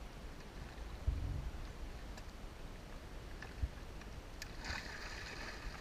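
A dull thump against the boat about a second in. Near the end, water splashes at the side of the boat as a hooked fish thrashes at the surface beside the hull.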